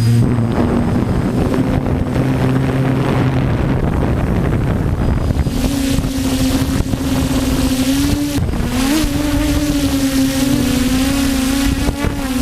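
DJI F450 quadcopter's motors and propellers humming, the pitch wavering as the motors keep adjusting, with a brief upward jump about eight and a half seconds in. Wind buffets the microphone throughout.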